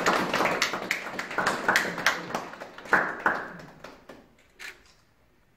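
A small group clapping by hand, the applause thinning out and dying away about four seconds in, with a couple of last stray claps after.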